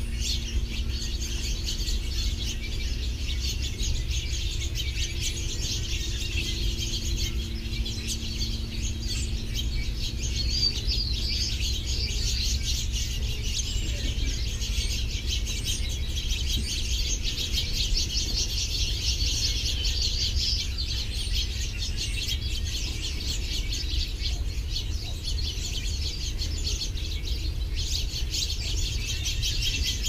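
A flock of small songbirds, finches and sparrows, chirping and twittering many at once, without a break, over a steady low rumble.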